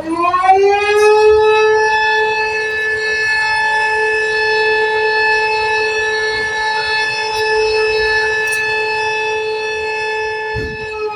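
Outdoor tornado warning siren sounding during a test. It winds up in pitch over the first second or two, then holds one steady, loud wail.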